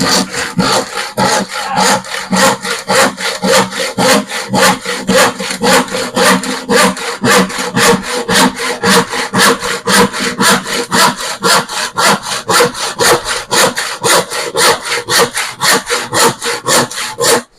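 Hand saw cutting through plywood in quick, even back-and-forth strokes, about three to four a second, stopping abruptly near the end.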